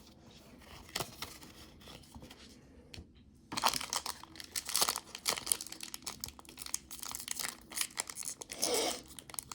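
A few faint taps, then from about three and a half seconds in, the crinkling and tearing of a foil Pokémon card booster pack wrapper being ripped open and handled.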